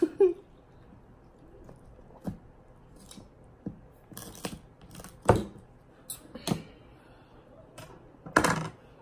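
Hard crab or lobster claw shell being cracked and picked at: a scattering of sharp snaps and clicks, the loudest about five seconds in and another cluster near the end.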